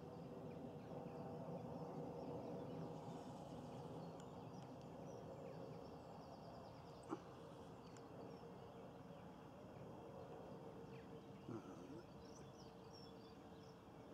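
Quiet outdoor ambience at a lakeside: a faint steady background hum with a few faint, high bird chirps, and a single short sharp click about seven seconds in.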